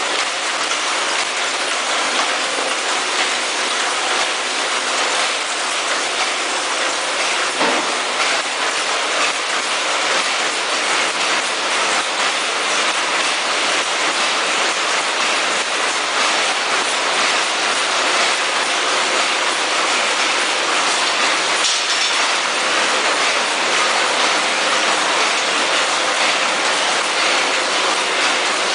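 Several vertical sachet packing machines running together: a steady, dense mechanical clatter of rapid clicks that does not let up.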